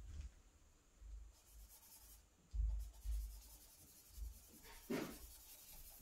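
Charcoal scratching and rubbing on drawing paper in short strokes, with a few dull low thumps, the loudest near the middle.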